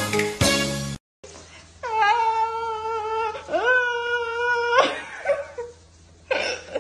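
A pet's two long, whining calls, each rising at the start and then held steady for over a second, following a second of background music. A short burst of noise and choppy sounds follow near the end.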